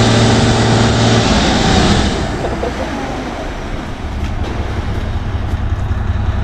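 A large truck's engine running. It is loudest in the first two seconds, eases off, then builds again toward the end.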